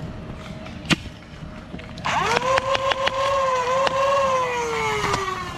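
A foam dart blaster's flywheels rev up with a rising whine about two seconds in, then hold a steady whine through a rapid string of shots, each a sharp click. Near the end the motors wind down with a falling whine. A single sharp click comes about a second in.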